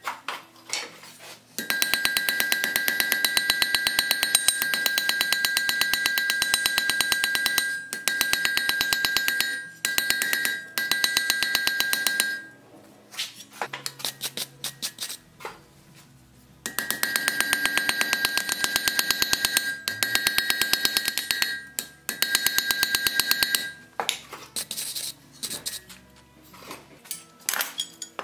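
Hammer striking a red-hot iron bar on an anvil to forge a buggy seat iron: two long runs of rapid, even blows with the anvil ringing steadily under them, a few seconds' pause between. Near the end, lighter clinks of metal pieces being handled.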